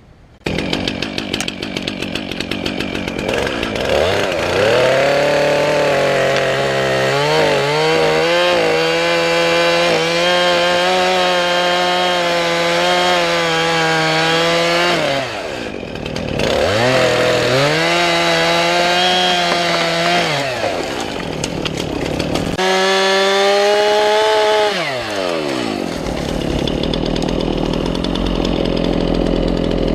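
Stihl chainsaw running at high revs through a cut. The throttle drops off and comes back up twice, and the saw runs at a lower, rougher note for the last few seconds.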